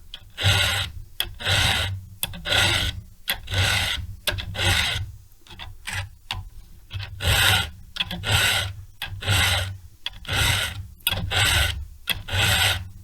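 Hand file rasping across the cutter teeth of a chainsaw chain in steady strokes, about one a second, with a few weaker strokes near the middle. The cutters are being filed from full chisel to a milling angle.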